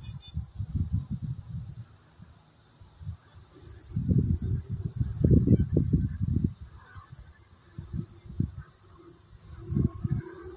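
Steady high-pitched insect chorus at dusk over open fields, with irregular low buffeting rumbles, strongest between about four and six seconds in.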